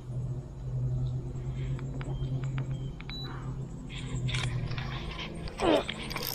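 Electric trolling motor humming steadily as the boat creeps along the docks, stopping about five seconds in. Just before the end comes a short, loud, falling vocal cry.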